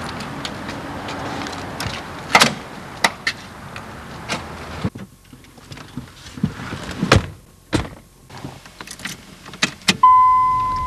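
Car doors being opened and shut: a series of clunks and knocks. Near the end a steady high electronic tone starts suddenly.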